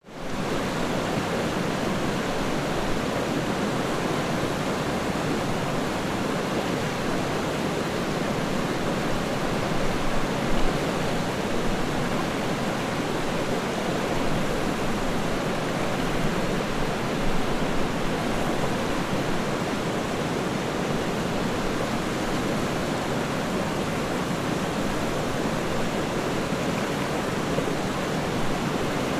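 Steady rushing water, an even rush that fades in at the very start and holds without a break.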